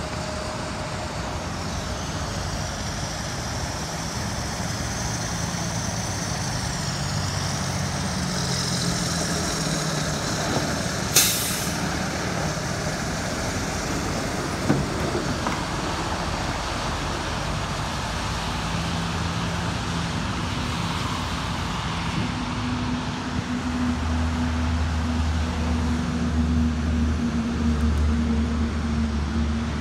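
Interjet airliner's jet engines on landing at runway 23: a steady rumble with a high whine that wavers in pitch. A sharp click comes about a third of the way in, and a low steady hum sets in near the end.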